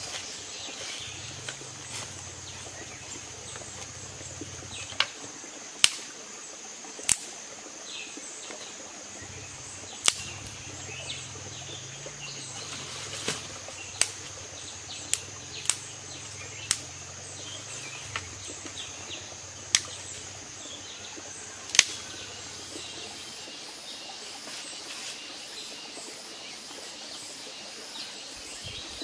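Dry twigs snapping by hand for kindling: about a dozen sharp, separate cracks. Behind them runs a steady high-pitched drone, with scattered bird chirps.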